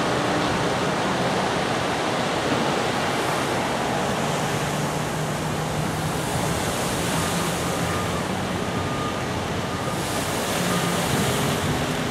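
Steady rushing splash of the Rainbow Pool's fountain jets falling into the pool.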